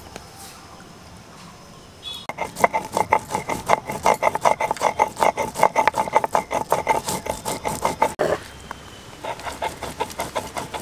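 Cumin seeds being ground on a flat stone grinder (sil-nora), the hand stone scraped back and forth in rapid rhythmic strokes. The grinding starts about two seconds in, stops briefly near the end, and resumes more softly.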